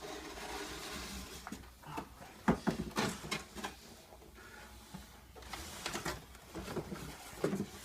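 Rustling of packaging being handled, with a quick run of clicks and knocks about two and a half seconds in and lighter taps later.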